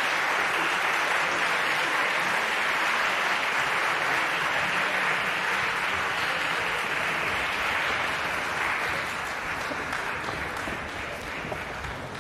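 Audience applauding, the clapping thinning out and fading near the end.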